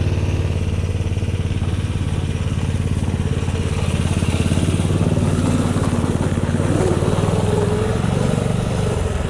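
Snowmobile engine running steadily, the engine pitch holding even throughout.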